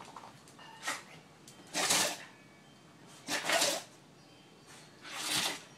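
A dog sneezing three times in a row, about a second and a half apart, with a fainter sneeze about a second in. The dog has just been bathed.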